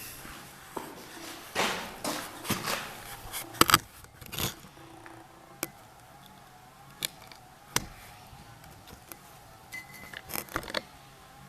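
Freshly lit wood fire in a brick fireplace stove: scattered sharp pops and crackles from damp firewood. A few louder scraping or rustling bursts come about two seconds in, around four seconds and near the end.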